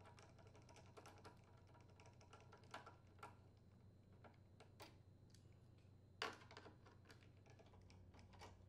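Faint, scattered clicks and light taps of a Phillips screwdriver and fingers working the screws of a plastic air filter housing, with one louder click about six seconds in.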